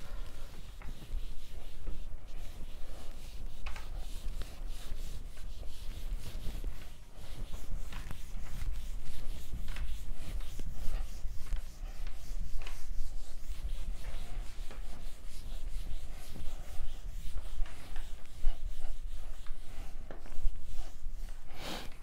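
Whiteboard eraser rubbing back and forth over a whiteboard in repeated strokes, wiping off marker writing.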